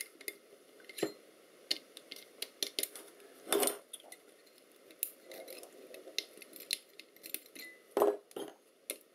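Small metal clicks and clinks of tweezers and small metal discs and washers being lifted out of a transducer housing and set down on a workbench. There is a run of light ticks, with three louder knocks: about a second in, around the middle and near the end.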